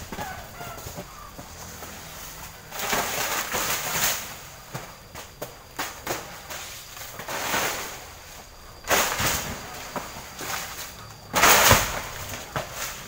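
Coconut palm fronds rustling and crackling in four bursts of about a second each, the loudest near the end, as the cut fronds fall through the leaves.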